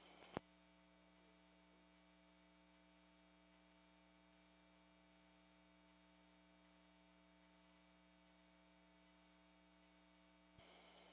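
Near silence: a steady electrical mains hum in the recording, with one sharp click about half a second in. Near the end a faint click comes and the background hiss rises a little.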